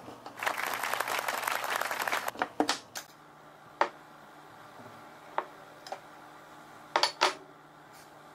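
A knife scraping and scooping whipped cream for about two seconds, then several sharp clinks and taps of the metal knife against the bowl and board as the cream is spread onto a chocolate cake layer, two of them close together near the end.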